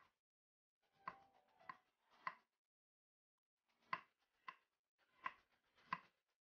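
A kitchen knife slicing a carrot on a wooden cutting board: about eight sharp knife taps against the board in an uneven rhythm, with a pause of over a second in the middle.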